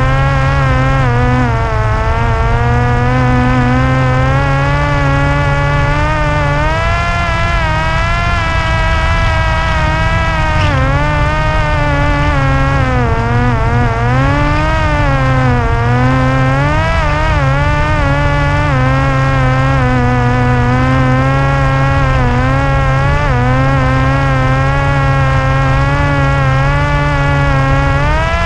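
Parrot Disco fixed-wing drone's electric motor and propeller buzzing in flight, the pitch drifting up and down every few seconds, over a steady low rumble.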